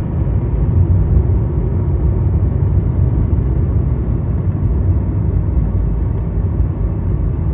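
A car driving along a hill road: a steady low rumble of engine and tyre noise, with no sudden changes.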